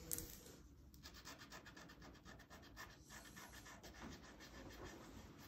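Felt-tip markers scribbling on paper in quick, short back-and-forth strokes, faint.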